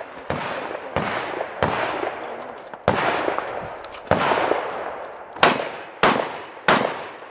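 Firearm shots fired in a competitive 3-gun stage: about eight shots at an uneven pace, each followed by a long echoing decay, the last three coming more quickly at about two shots a second.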